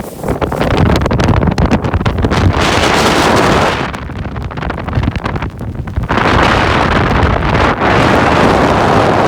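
Storm wind on a glacier blasting the microphone in loud gusts, easing for a couple of seconds around the middle before hitting again.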